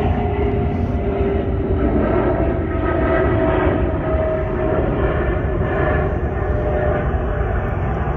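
Jet airliner flying low overhead: a steady rumble with an engine whine that slowly falls in pitch as it passes.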